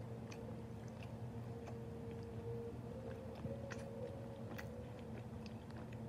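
A person chewing a soft chocolate brownie bar close to the microphone: faint, irregular little clicks of the mouth over a steady low background hum.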